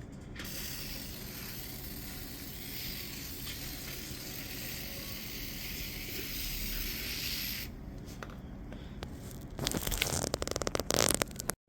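A steady hissing spray lasting about seven seconds. Near the end comes a burst of rapid crackling, like plastic or a bag being handled.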